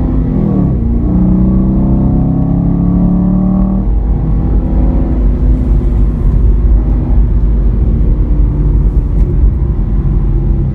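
Chevrolet SS's LS3 6.2-litre V8 running at speed. Its pitch drops briefly near the start, holds steady for a few seconds, then sinks into a steady low rumble of road and wind noise.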